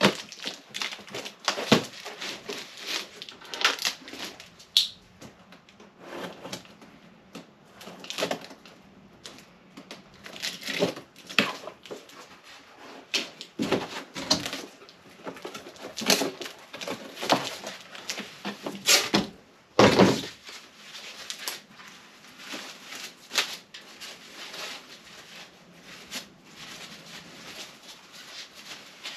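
Irregular knocks, clinks and scrapes of stainless exhaust pipe sections and clamps being handled and fitted together, with a couple of louder clunks about twenty seconds in.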